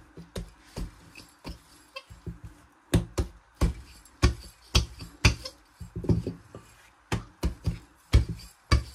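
Rolling pin worked back and forth over bread dough on a silicone mat, giving an irregular run of sharp knocks and thuds, about two a second, louder from about three seconds in.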